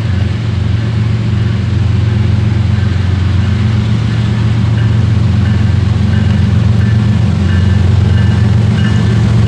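Diesel freight locomotive approaching with its engine running in a steady low drone that grows slowly louder.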